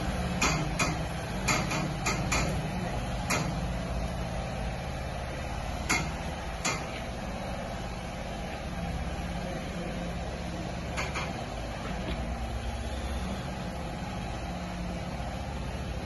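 A heavy vehicle's engine running low and steady as it moves slowly. Sharp clicks cut in, several in the first few seconds and a few more later.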